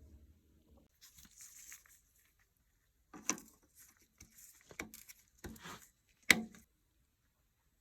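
Workshop handling of metal parts: a short stretch of scraping and rubbing, then four sharp clacks, the last the loudest.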